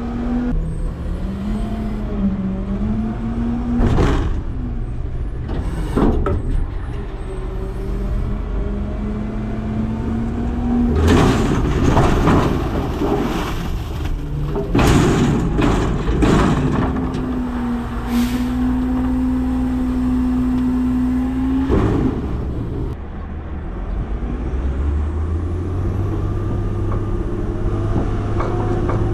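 Autocar/Heil front-loader garbage truck running with its engine held up at a steady pitch to work the hydraulics, with a few sharp metal bangs from the lift arms and container. About eleven seconds in comes a long rattling clatter as a container of food scraps and green waste is dumped into the hopper, then the engine settles to a lower rumble near the end.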